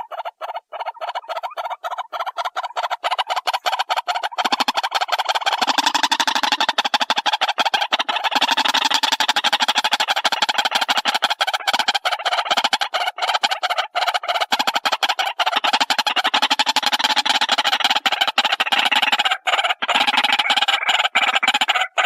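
White-breasted waterhen calling: a fast, unbroken run of short, harsh notes, many a second. It grows louder about four seconds in, and a lower note comes and goes beneath it.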